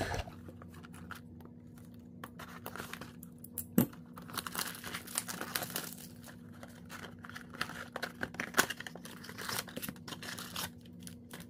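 Cardboard trading-card blaster box being torn open and handled: irregular tearing, crinkling and scraping of the packaging with scattered sharp clicks, the sharpest about four seconds in.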